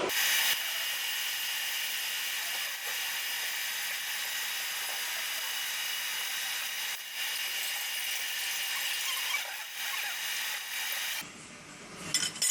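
Machine drilling with a 6.2 mm bit, cutting bolt holes in a newly made camshaft bearing cap. It runs as a steady, high-pitched whirr and stops about eleven seconds in.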